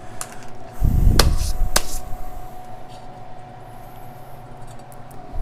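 Metal parts handled on a workbench: a low thump about a second in, with three sharp metallic clinks, over a faint steady hum.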